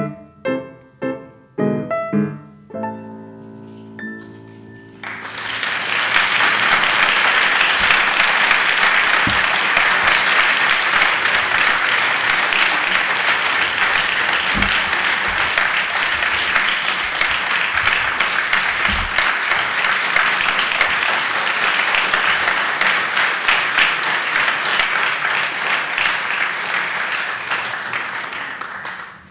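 Live piano accompaniment playing a few struck chords, about two a second, then settling on a held final chord. About five seconds in, an audience breaks into loud applause that goes on until it fades out right at the end.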